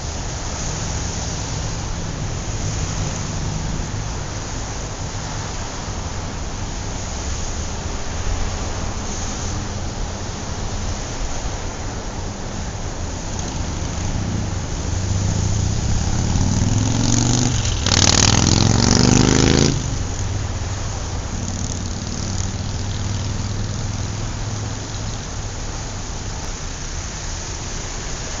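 Wind and road noise on a camera riding a moving bicycle, with the steady hum of motor traffic on the road. About two-thirds of the way through, a vehicle engine grows loud, rising in pitch for about two seconds, then cuts off suddenly.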